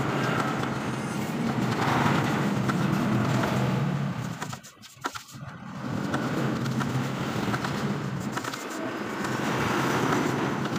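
An engine running with a steady low hum. It drops away for about a second halfway through and then comes back.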